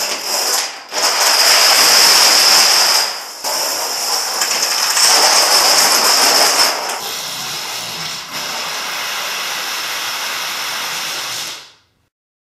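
Plastic dominoes toppling in a rapid, continuous clatter of countless small clicks. It dips briefly a few times and cuts off abruptly near the end.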